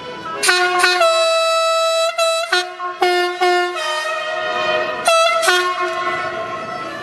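Train horn sounded in a series of long blasts by an approaching heritage diesel railcar, its pitch stepping down slightly partway through.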